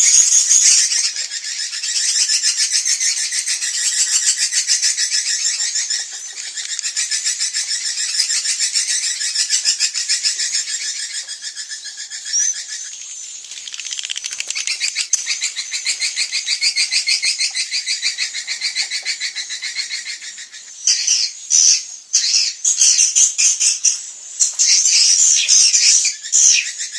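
Swiftlets twittering: dense, rapid trilled chirps, many birds overlapping, getting choppier and louder in bursts from about two-thirds of the way in. This is a recorded 'inap senja' swiftlet call, the dusk roosting lure played to draw swiftlets in to roost.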